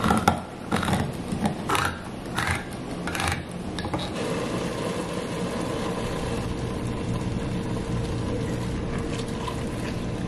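Handheld can opener cranked around the rim of a food can, clicking with each turn, about six clicks over the first three and a half seconds. After that, a steady even hum with a faint held tone.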